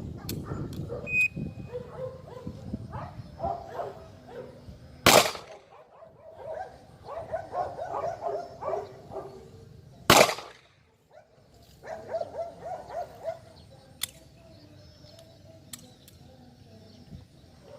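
Two loud handgun shots about five seconds apart, each with a short echo, followed by a fainter sharp crack a few seconds after the second.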